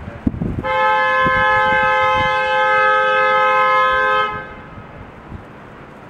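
Car horn sounding in one long steady blast of about three and a half seconds, two notes held together, starting just under a second in.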